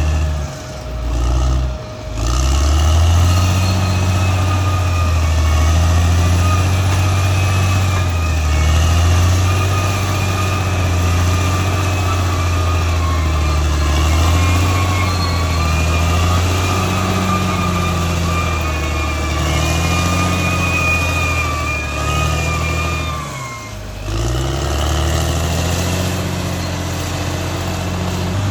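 Caterpillar D6R XL bulldozer's diesel engine running under load, its low drone rising and falling as the machine works, with a high whine that follows the engine speed. The engine sound drops briefly twice, about a second in and again near the end.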